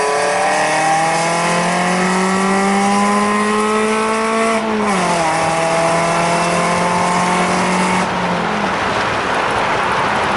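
2001 Ford Focus ZX3's 2.0-litre four-cylinder engine, breathing through aftermarket headers and a full exhaust, accelerating under load as heard from inside the cabin. The exhaust note climbs steadily, drops in pitch at a gear change about four and a half seconds in, and climbs again. Near the end it eases off into tyre and road noise.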